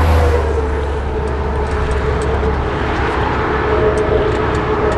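Steady road-vehicle noise: a motor vehicle's low rumble, loudest at the start and easing off about half a second in, with a few faint clicks near the end.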